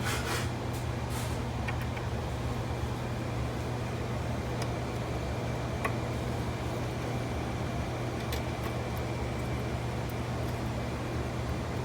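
Steady low mechanical hum, with a few faint light clicks as the small screws of the valve's actuator housing are worked out.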